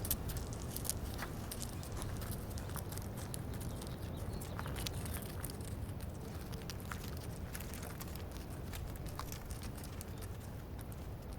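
Reindeer moving about: scattered sharp clicks and light footsteps, over a steady low rumble.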